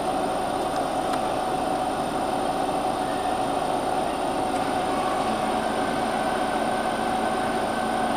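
Homemade gas turbine engine of a land-speed motorcycle running steadily: a loud rushing roar with a thin, high steady whine. About five seconds in, two more steady tones come in, one high and one low.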